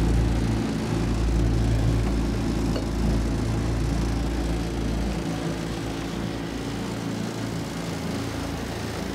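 Boat motor running steadily as the boat travels to a new fishing spot, with a low, even engine hum. It gradually gets quieter, and the deepest part of the hum drops away about five seconds in.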